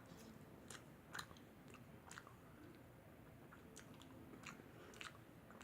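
Faint chewing: soft, irregular mouth clicks of a person eating, with a slightly louder click about a second in.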